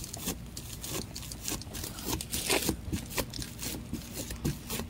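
Plastic-wrapped kitchen sponge dabbed again and again onto paper with acrylic paint: a run of short, irregular crinkles and crackles of the plastic wrap with each press.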